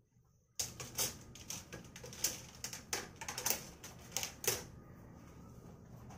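Plastic clothes hangers clattering and clicking against each other as they are handled. It is a rapid, irregular run of sharp clacks that starts about half a second in and stops about three-quarters of the way through, over a low steady hum.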